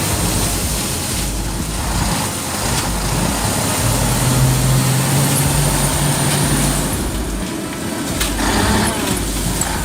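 Heavy truck's engine running over steady rushing noise, with a low engine drone that stands out for a few seconds mid-way.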